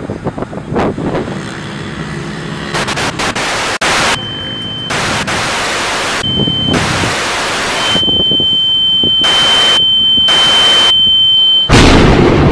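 Glitch sound effects: bursts of static hiss that cut in and out abruptly, with a high steady beep through the middle. A loud, deep boom comes near the end.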